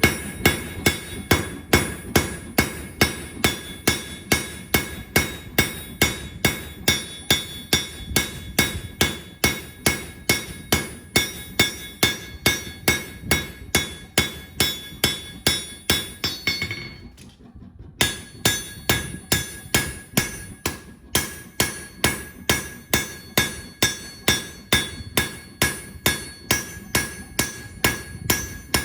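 Blacksmith's hammer beating hot steel on an anvil at a steady rhythm of about two and a half blows a second, each blow leaving the anvil ringing. The hammering stops for about a second a little past the middle, then resumes.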